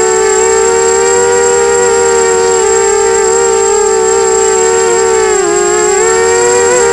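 250-size FPV racing quadcopter's brushless motors and propellers whining steadily, heard close from the onboard camera. The pitch dips and recovers about five and a half seconds in and wavers again near the end, with a thin steady high tone above.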